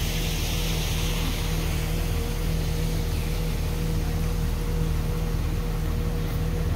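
Canal boat's diesel engine running steadily, a low even drone with a faint steady hum above it, over a wash of water and air noise.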